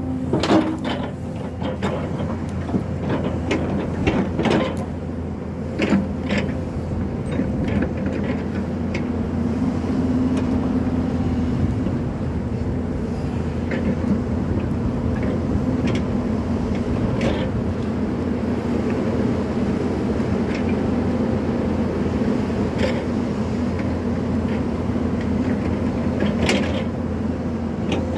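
Hyundai crawler excavator's diesel engine running steadily under hydraulic load while clearing brush and stumps, with sharp knocks and cracks several times in the first seven seconds and a couple more later.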